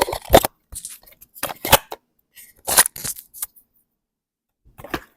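Handling noise on a wireless lavalier microphone as it is picked up and moved: a few short bursts of rubbing, scraping and clicking with silent gaps between them.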